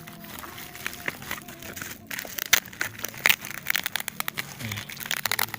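Parcel wrapping crinkling and rustling as it is pulled and torn open by hand, with irregular sharp crackles and snaps that grow denser and louder from about two seconds in.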